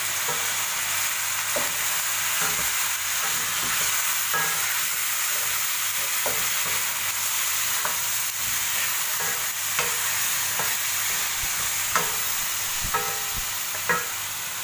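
Beef pieces and ginger-garlic paste sizzling steadily in hot oil in a nonstick wok, stirred with a spatula that scrapes and taps against the pan every few seconds.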